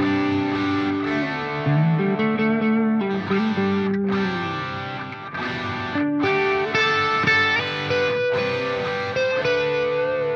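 Background music led by a distorted electric guitar, playing a slow melody of long held notes that slide and bend in pitch.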